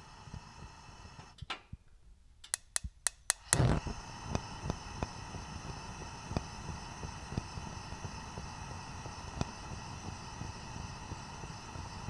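Gas stove burner being lit: the igniter clicks rapidly about five times, then the gas catches with a low thump a little over three seconds in, and the burner burns with a steady hiss.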